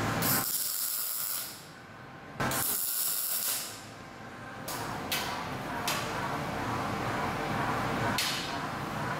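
Arc welding tacks on a steel tube frame: two hissing bursts of about a second each near the start and about 2.5 s in, then shorter bursts around 5, 6 and 8 seconds in.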